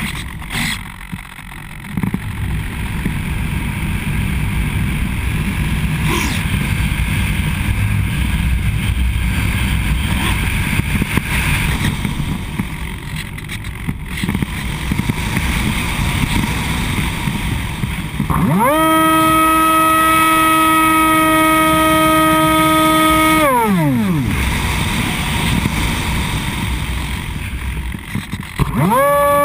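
Hawk Sky RC plane's electric motor throttled back at the start, leaving the plane gliding with wind rumbling on the wing-mounted camera's microphone. About two-thirds of the way through the motor winds up to a steady whine for about five seconds, winds down again, and spins back up near the end.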